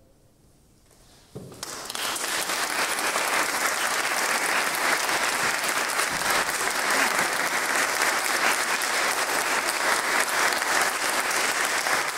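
A brief hush, then audience applause that starts about a second and a half in and continues steadily.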